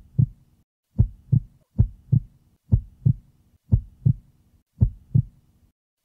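Heartbeat sound effect: a steady lub-dub of paired low thumps, about one pair a second.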